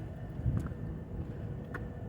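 Low steady rumble of locomotive machinery around an EMD SD70ACe that has failed to start on air start, with a soft thud about half a second in and a sharp click near the end.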